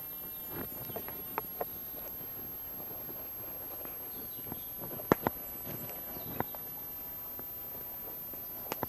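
Close handling noises as split wooden sticks and a cord are worked by hand to make camp tongs: scattered light clicks and taps of wood, with a sharper double click about five seconds in and two more near the end.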